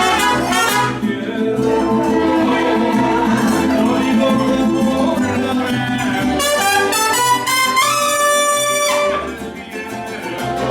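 Mariachi band playing, brass leading over a steady pulsing bass rhythm, with a long held note about eight seconds in before the music drops back briefly.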